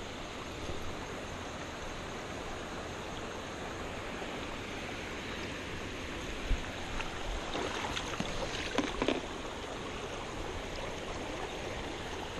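Creek water running steadily over rocks, an even rushing, with a few faint clicks and knocks in the second half.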